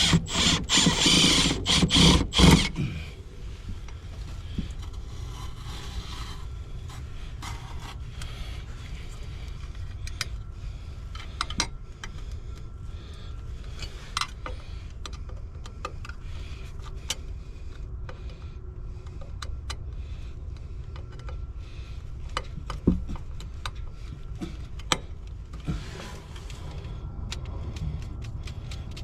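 Hands-on work noise: a loud scraping rustle for about two and a half seconds, then scattered light clicks and knocks over a steady low hum.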